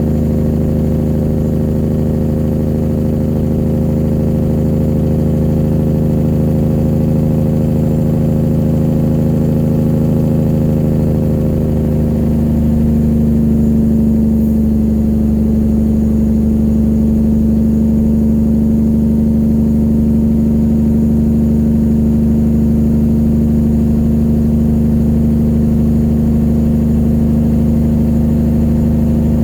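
Straight-piped 1999 Peterbilt 379 diesel engine running steadily under way, its note changing about twelve seconds in and then holding steady.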